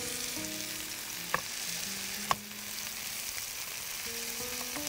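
Beef burger patties sizzling steadily as they fry in a pan, with two sharp clicks about a second apart near the middle.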